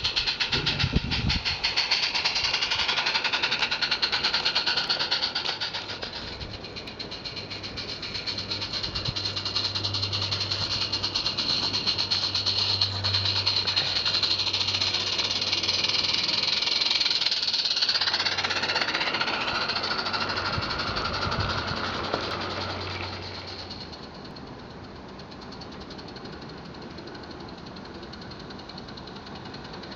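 Live-steam garden-railway locomotive running with a train of wagons: rapid, even exhaust chuffs over a steady high hiss. It is loud at the start and again in the middle as it runs close, then quieter for the last several seconds.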